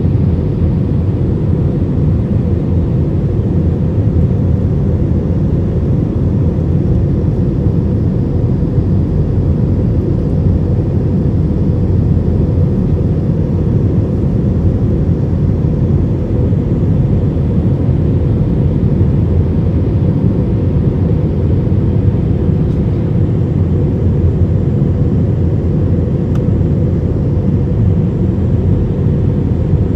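Steady cabin noise of a jet airliner in flight, heard inside the cabin at a window seat over the wing: a constant low rumble of engines and airflow that does not change.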